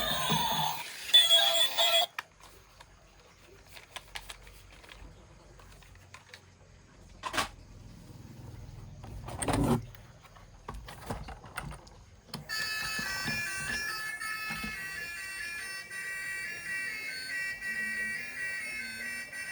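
A loud pitched sound with several tones that stops about two seconds in, then quiet scattered clicks and knocks, then an electronic melody of short stepped notes starting about twelve seconds in.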